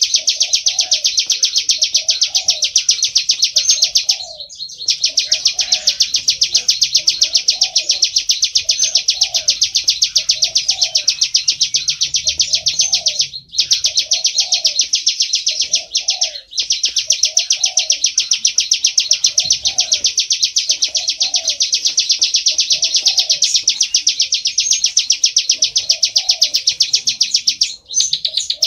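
Plain prinia (ciblek sawah) singing: a rapid, continuous, high-pitched run of repeated notes, broken by brief pauses a few times. A softer, lower note repeats about once a second underneath.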